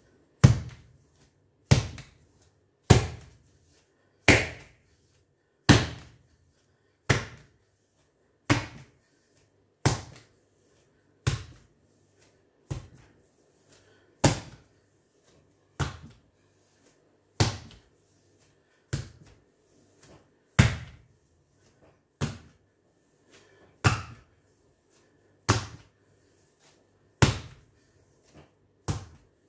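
A ball of bread dough slapped hard onto a stone countertop over and over while being kneaded, a heavy slap about once every second and a half, twenty or so in all.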